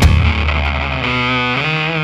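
Heavy metal music with a distorted electric guitar playing long held notes, the pitch shifting about a second and a half in.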